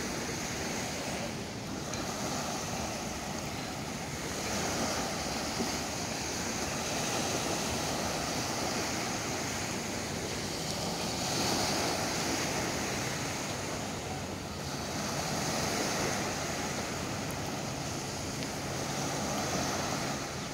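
Sea waves washing onto the beach, a steady rush that swells and eases every few seconds.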